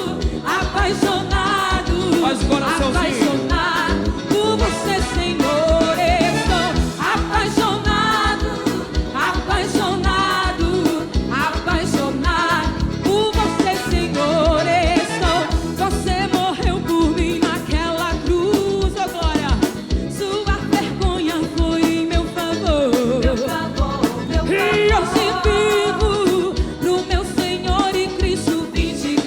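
Live forró band music with a steady drum beat under a melodic lead.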